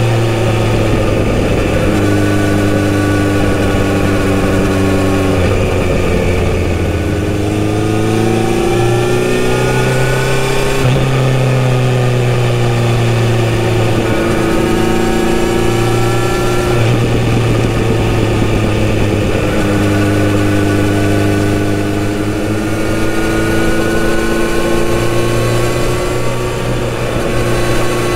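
Kawasaki Z900RS inline-four through its full-system exhaust, heard from the rider's seat while cruising. The engine note holds steady, then climbs in pitch under acceleration about a third of the way in, drops back, and rises slowly again in the last third.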